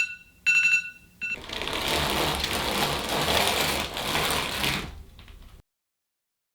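An electronic alarm beeping with a two-note tone, switched off about a second in, followed by about three and a half seconds of rough, steady mechanical noise that cuts off suddenly.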